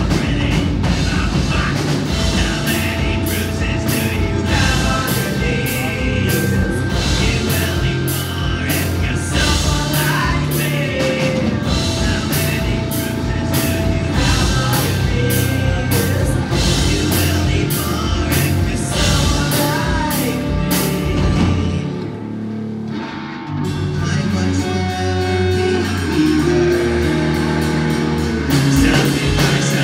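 Live rock band playing: a singer's vocals over electric guitar, bass guitar and a drum kit with a steady cymbal beat. The drums drop out briefly about three-quarters of the way through, then the full band comes back in.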